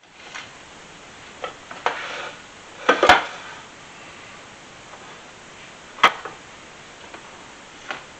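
Kitchenware being handled at the stove: a few sharp knocks and clatters of items set down on the counter and hob. The loudest is a double knock about three seconds in, as a cutting board is put down beside the frying pan. A steady hiss runs underneath.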